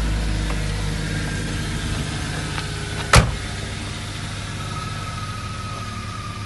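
BMW 325i's M50B25 2.5-litre straight-six (non-VANOS) idling after a rev, settling and easing slightly in level, on its first start after winter. A sharp click a little past three seconds in, and a faint steady whine joins in the second half.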